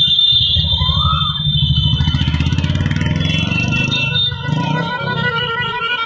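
Many motorcycle engines running together at low speed, some revving. Steady horn tones sound over the engines from about three seconds in.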